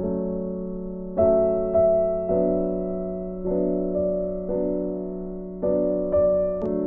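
Background piano music: slow, gentle chords, a new chord struck about once a second and left to ring.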